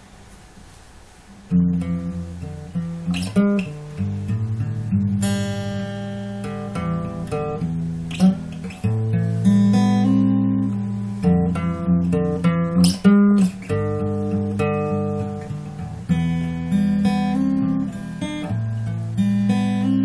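Acoustic guitar playing a song's instrumental intro, strummed and picked chords. It starts about one and a half seconds in, after faint hiss.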